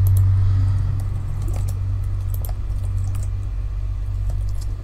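Computer keyboard keys clicking, a few irregular keystrokes for shortcut commands, over a steady low hum.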